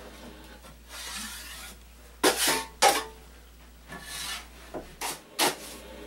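An 8-inch drywall knife scraping Sheetrock 45 joint compound along tin corner bead in a series of short strokes, two of them sharp and loud a little past the middle: the first coat being spread and feathered.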